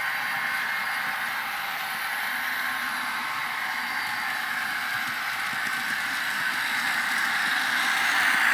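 N scale DCC sound-equipped model trains running on the layout: a steady whirring hiss from the tiny locomotives and their wheels on the track, growing louder near the end as a train comes past close by.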